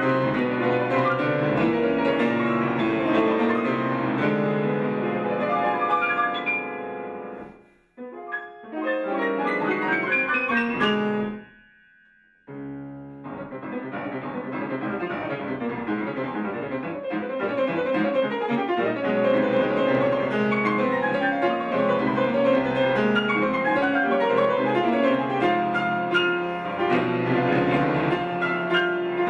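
Grand piano playing a fast, dense classical passage. About eight seconds in it dies away almost to nothing. A quick rising run follows, then about a second of silence, before the playing starts again at full strength.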